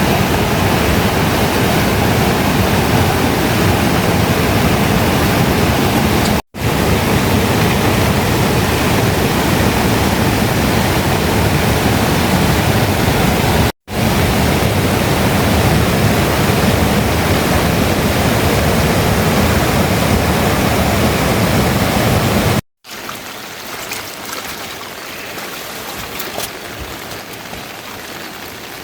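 Steady, loud rushing-water noise in spliced stretches that cut off abruptly and restart. About three-quarters through it cuts to a quieter stretch of rain with separate drop impacts.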